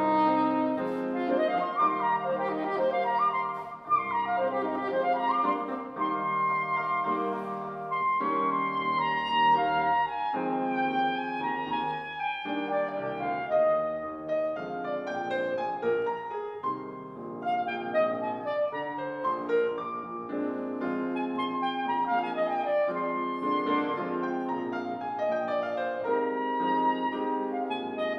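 Soprano saxophone playing a busy melodic line of quick runs that climb and fall, accompanied by a Steinway grand piano.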